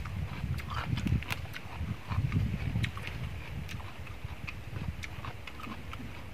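Close-up mouth sounds of a man chewing fried fish, with irregular small wet clicks and lip smacks, and a few duller low bursts of chewing about a second in and again around two to three seconds in.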